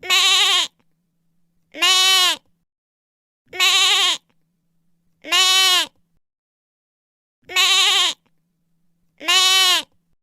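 A lamb bleating six times, each a short, high, wavering call of about two-thirds of a second, spaced roughly a second and a half to two seconds apart.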